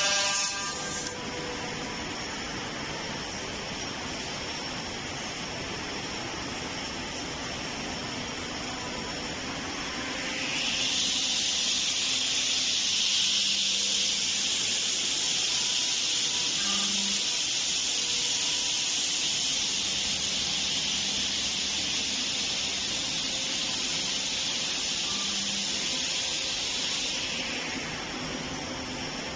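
CNC tenoning and mortising machine running with a steady mechanical hum. About a third of the way in, a loud, even hiss starts and holds for about sixteen seconds before stopping near the end.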